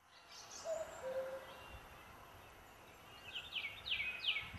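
Birds singing in woodland: two low whistled notes, the second a little lower, about a second in, then a quick run of high descending notes near the end, over faint background hiss.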